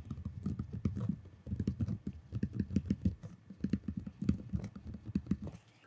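A stylus writing by hand on a tablet or touchscreen: a quick, irregular run of soft knocks and clicks as the pen tip taps and drags across the surface. The run pauses briefly about a second and a half in and stops just before the end.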